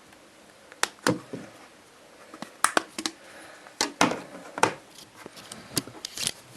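Sharp plastic clicks and snaps, about a dozen, irregularly spaced: the back cover of an Amoi N828 mobile phone being prised open and handled.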